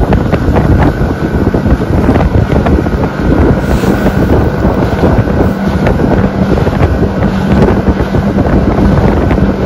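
A small aluminum boat's motor running steadily at a low, trolling speed, a constant hum, with wind buffeting the microphone.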